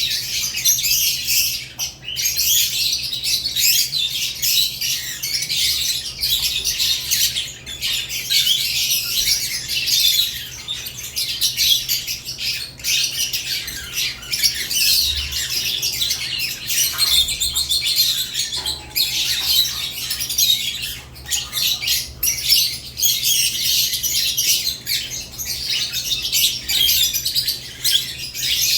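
Several caged lovebirds chirping and squawking without pause in a dense, high-pitched chatter, over a low steady hum.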